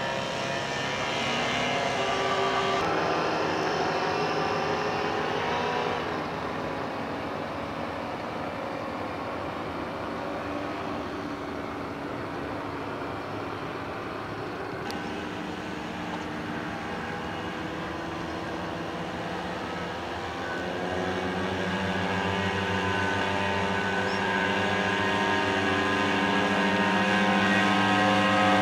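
Powered paraglider's paramotor engine and propeller running in flight overhead, a steady pitched buzz that grows louder over the last several seconds as the craft comes closer.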